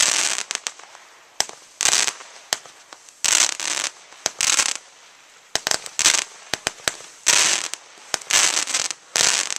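Fireworks going off: a run of short, loud hissing, crackling bursts about a second apart, with sharp pops in between.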